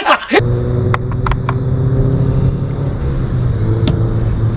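A boat motor humming steadily, with a few sharp clicks in the first second and a half.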